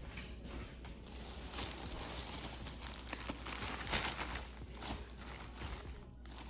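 Crinkling and rustling of the plastic wrap on a bulk pack of toilet paper as the rolls are pulled out and handled, loudest about four seconds in.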